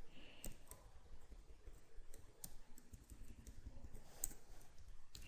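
Faint, scattered keystrokes on a computer keyboard.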